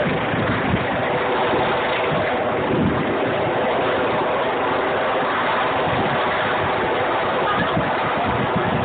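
Wind buffeting the microphone over a steady rushing street noise.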